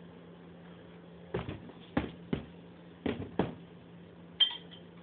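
A handful of sharp knocks or thumps in quick succession, then a single short ringing clink near the end, over a steady low hum.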